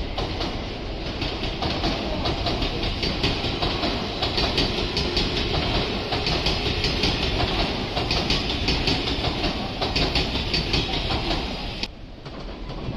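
Odakyu Line electric commuter train running past, its wheels clattering rapidly over the rail joints above a steady rumble of the cars. The sound drops away suddenly near the end.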